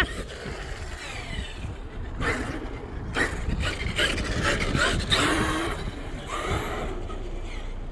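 Traxxas X-Maxx electric RC monster truck driving, heard as several short surges of motor and tyre noise.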